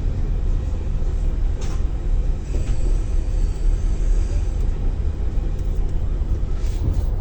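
Passenger train running on the rails: a steady low rumble, with a couple of sharp clicks and a faint high-pitched whine for a couple of seconds in the middle.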